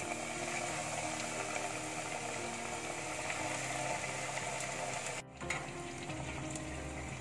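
Beetroot cutlets frying in hot oil in a steel pot: steady sizzling and crackling of the bubbling oil. The sound breaks off for a moment a little over five seconds in, then carries on.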